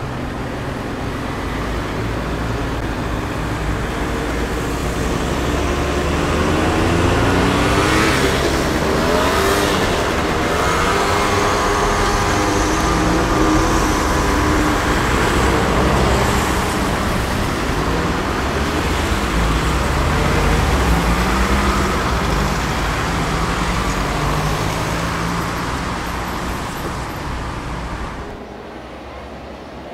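Dense city street traffic: engines running and vehicles passing, with pitched tones rising and falling through the middle. It drops away near the end.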